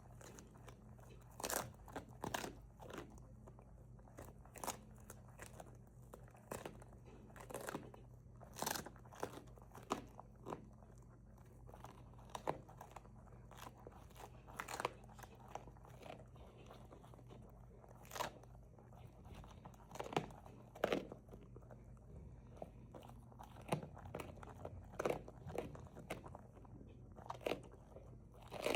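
Newfoundland dog chewing a raw duck neck: irregular loud crunches as the bones crack between its teeth, with softer gnawing in between.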